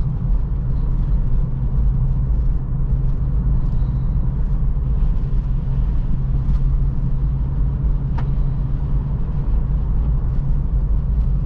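Road noise inside a 2023 Acura Integra driving over rough, potholed pavement: a steady low rumble of tyres and engine, with a single light click about eight seconds in.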